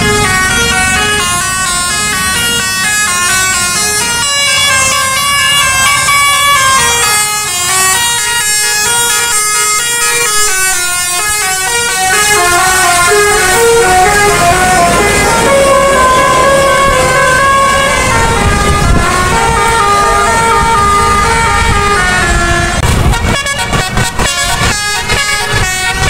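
Telolet musical air horns on a bus playing a long, fast melody of stepping notes over engine and traffic rumble. Near the end the horn tune gives way to choppy, uneven noise.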